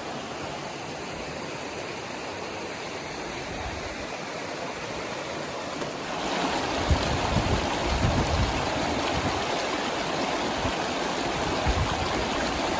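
Creek water running steadily, louder from about six seconds in, with a few low bumps after that.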